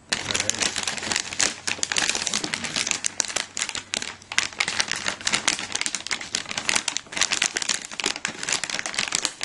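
Plastic packaging around a graphics card crinkling and crackling as it is handled and pulled open, a dense, unbroken run of small crackles.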